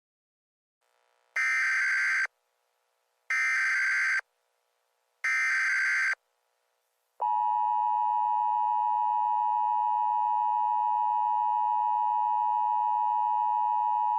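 Emergency Alert System tones: three short buzzy bursts of SAME header data, each just under a second long and about two seconds apart, then about seven seconds in the steady two-tone EAS attention signal starts and holds.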